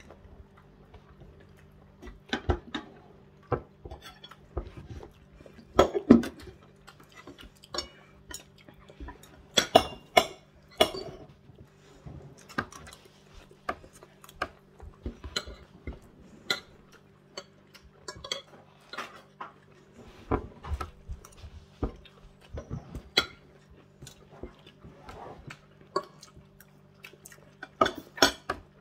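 Metal cutlery clinking and scraping on a ceramic dinner plate in short, irregular clicks during a meal, over a faint steady hum.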